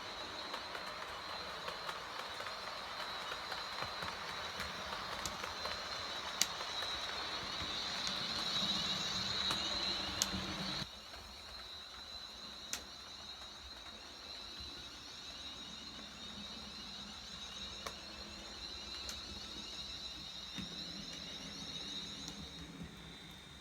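Small electric motor of a 1:76 scale model running with a steady high-pitched whine and a few light clicks; a rougher hiss under the whine drops away abruptly about eleven seconds in.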